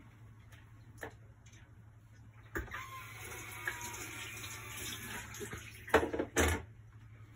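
Water running for about three seconds, then two loud knocks near the end, over a faint steady low hum.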